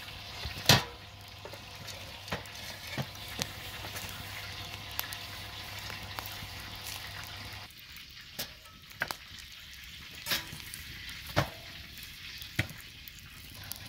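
Open wood fire crackling steadily, with scattered sharp pops and snaps from the burning logs; the loudest comes about a second in.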